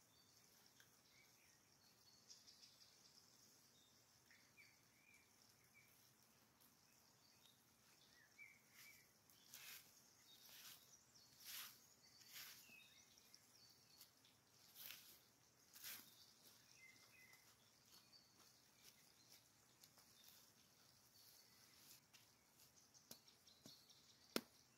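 Faint scraping strokes of a small hand shovel digging into leaf-littered forest soil, a handful of them in the middle. Small birds chirp faintly in the background, and there is one sharp click near the end.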